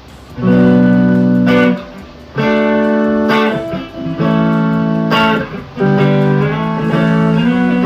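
Custom-built hybrid acoustic-electric guitar strummed in its acoustic mode: five chords of a B minor–D–A–G progression, each struck and left to ring for about a second and a half.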